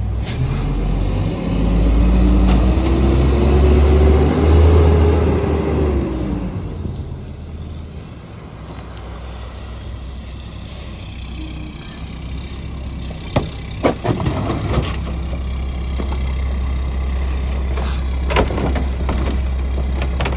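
Mack MR garbage truck's diesel engine pulling away, its pitch rising and then falling over a few seconds. It then settles to a steady idle, with a few sharp clunks near the end as trash carts are handled at the rear loader.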